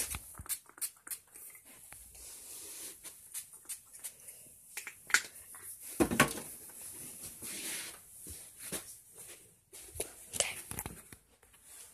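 Scattered knocks, clicks and rustling of a handheld camera being handled and moved around a small room, with a few brief faint voice sounds.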